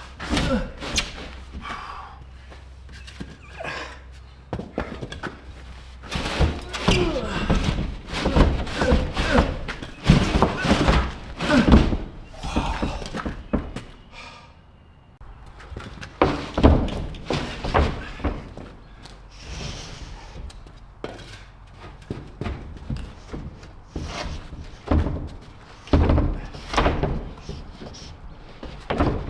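Irregular wooden thunks and knocks from a board being handled, slid and wedged into place in a barn wall. They come in several clusters with quieter gaps between.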